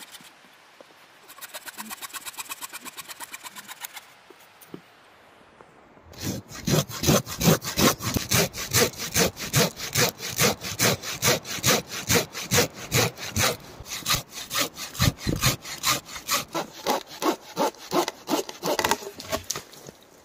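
Hand saw cutting through wood. A short, quieter run of quick strokes comes about a second in, then after a pause there are steady, louder back-and-forth strokes, about two to three a second, until near the end.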